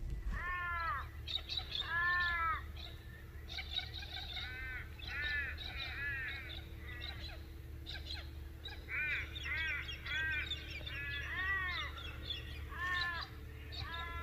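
Crows cawing: a long series of drawn-out caws, each rising and falling in pitch, coming in quick groups, over a steady low background rumble.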